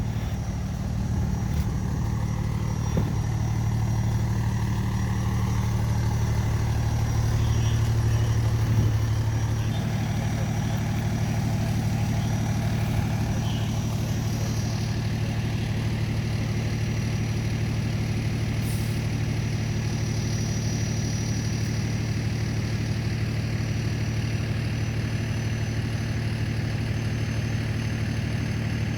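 Fire engine's diesel engine running, louder for the first several seconds, then dropping back to a steady idle about nine seconds in.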